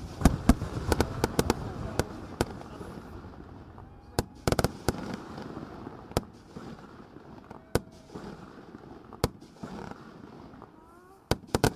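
Scattered sharp firework bangs and firecracker pops at irregular intervals, some in quick clusters, over faint background voices.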